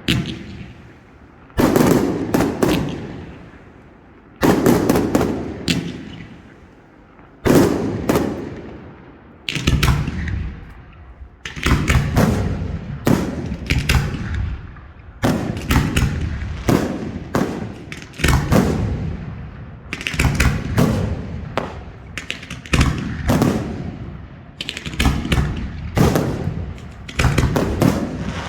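Professional F4 display fireworks going off at close range: a series of loud bangs, each trailing off in a long rolling echo. About three seconds apart at first, then from about ten seconds in they come faster, roughly one a second, several as clusters of close cracks.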